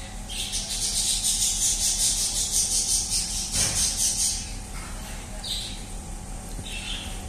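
A kitten gnawing and crunching on a bone close to the microphone: a run of rapid, regular crunches for about four seconds, then a couple of single crunches near the end.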